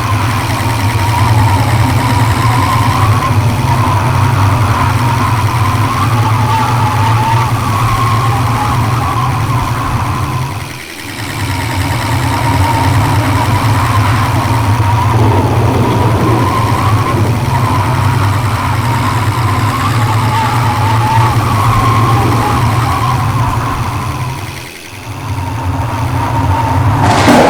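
Vehicle engine and road noise, steady and loud, dipping briefly twice, about eleven and twenty-five seconds in.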